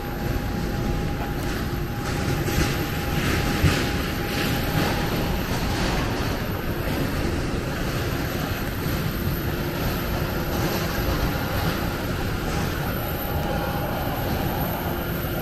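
Airport apron noise: a steady rumble with a faint constant whine from parked jet airliners and ground equipment running nearby.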